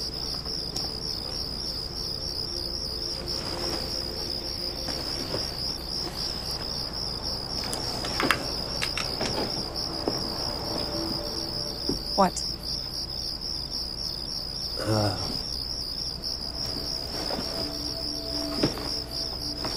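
Steady, high-pitched pulsing insect chirring, cricket-like night ambience, with a few faint knocks.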